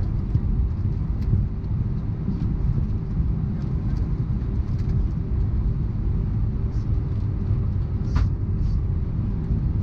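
Airbus A319 with IAE V2500 engines, heard from inside the cabin: a steady low rumble of engine and airframe noise with a faint steady hum, scattered small clicks, and a brief rattle about eight seconds in.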